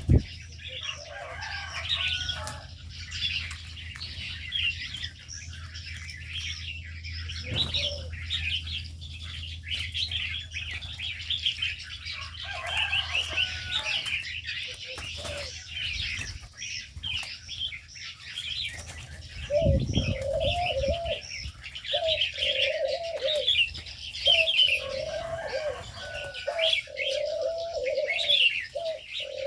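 Aviary birds: many small birds chirping all through, a flurry of wing flaps about two-thirds in, then a dove cooing over and over to the end.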